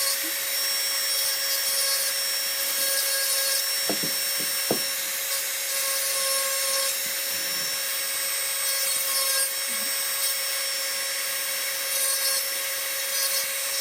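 Dremel 4000 rotary tool running steadily with a small carbide inverted cone bit grinding fine eyebrow detail into wood: a constant motor whine over a scratchy grinding hiss.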